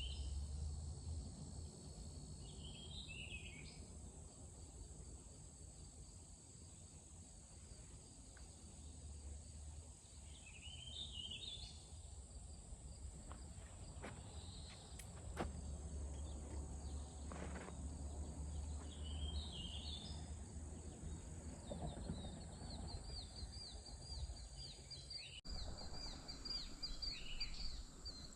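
Outdoor ambience with a bird giving a short chirping phrase every several seconds, over a steady high insect drone. Near the end a fast, even trill joins in. Wind rumbles on the microphone, and a few faint clicks come about halfway through.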